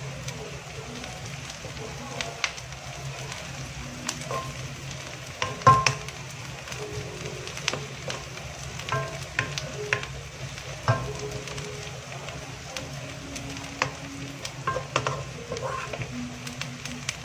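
Okra frying in oil in a non-stick wok, sizzling steadily, with a wooden spatula stirring and knocking against the pan now and then; the loudest knock comes about six seconds in.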